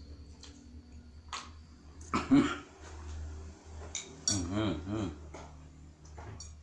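Several sharp clicks and clinks of small hard objects being handled, with a short wordless voice sound about two seconds in and a wavering one around four and a half seconds.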